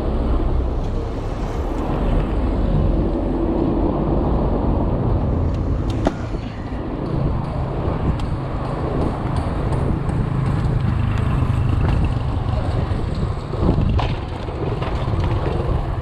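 Rushing wind and tyre rumble from a downhill mountain bike ridden fast on city asphalt, with car traffic around it. A sharp knock about six seconds in and another near fourteen seconds.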